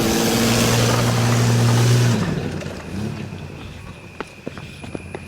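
Nissan Pathfinder engine held at high revs under load with a loud rushing hiss of tyres spinning in sand, as the 4x4 tries to pull itself free. About two seconds in, the revs fall away and the rushing stops, leaving scattered sharp clicks and ticks.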